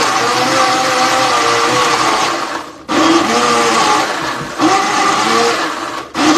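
Small personal blender running, blending chunks of ripe papaya with very little water; the motor's pitch wavers as the load shifts. It cuts off briefly about three seconds in and again near the end, starting again each time.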